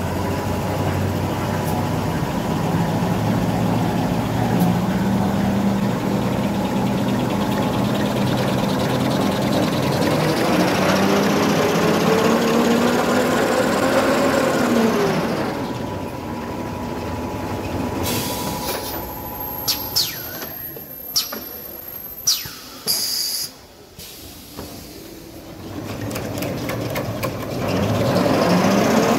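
Toilet paper rewinding machine running: its drive hum climbs steadily in pitch as it speeds up, then falls away as it slows. In the quieter stretch that follows come several sharp clicks and a short hiss, before the machine speeds up again near the end.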